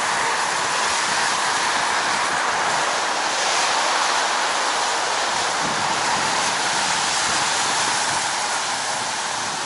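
Steady rushing noise of riding fast on a wet road in the rain: air rushing past the microphone mixed with tyres hissing on wet pavement.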